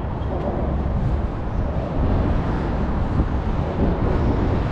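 Wind buffeting the microphone outdoors: a steady low rumble with no distinct events.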